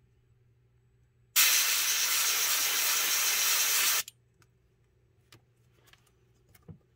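Master airbrush spraying in one steady hiss of about two and a half seconds that starts sharply about a second in and cuts off suddenly. A faint low hum runs underneath.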